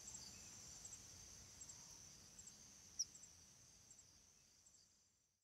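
Faint outdoor ambience of insects: a steady high-pitched shrill with small repeated chirps and one sharper chirp about three seconds in, fading out to silence near the end.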